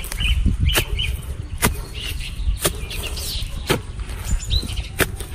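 Short-handled hoe chopping into hard, stony soil, a sharp strike about once a second, with birds chirping between the strokes.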